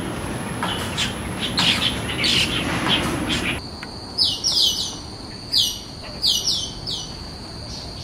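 Asian glossy starlings calling: short chattering calls over a steady noisy background, then, after a cut about three and a half seconds in, a run of short, sharp whistles that sweep downward, over a steady high-pitched drone.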